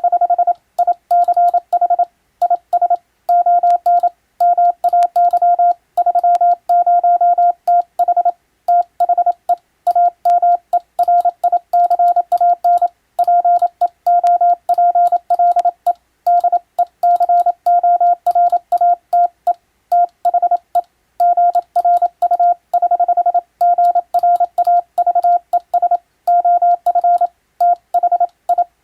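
Morse code (CW) tone: a single steady mid-pitched beep keyed on and off in quick dots and dashes, sending English-text telegram practice at a fast, even pace.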